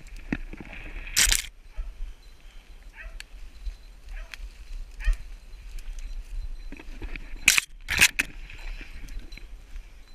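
Footsteps through forest undergrowth, with spruce branches scraping and brushing against clothing and the camera, and twigs snapping. A few sharp, loud brushes come about a second in and again twice near the end.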